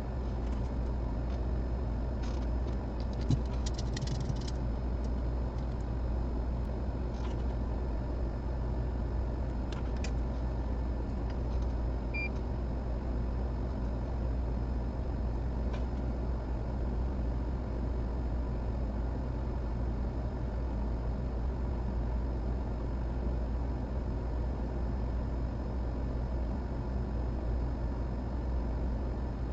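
Steady low hum and rush of a fan or blower running without change, with a few faint clicks a few seconds in and again about ten seconds in.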